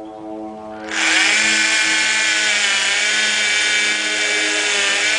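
Power drill running steadily at speed, boring a hole in wooden door framing. It starts abruptly about a second in.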